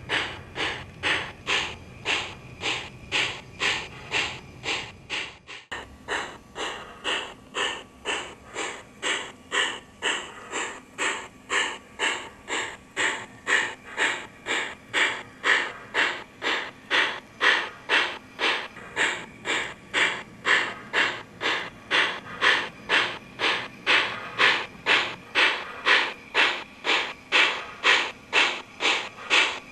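Sound system of an MTH HO-scale New York Central Dreyfuss Hudson steam locomotive model playing steady steam chuffs, about two a second. A low rumble beneath the chuffs stops abruptly about six seconds in.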